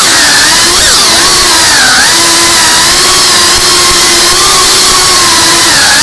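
FPV drone's motors and propellers whining loudly in flight, the pitch wavering up and down with the throttle.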